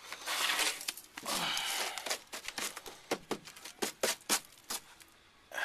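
Rustling and scraping as rusted floor-pan debris is handled, followed by a run of short, sharp clicks and knocks.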